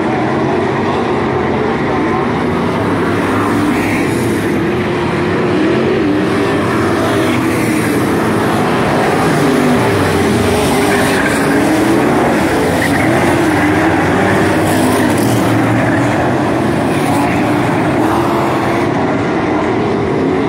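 A field of dirt-track street stock race cars running together, their engines' pitch rising and falling as the cars accelerate and lift through the turns.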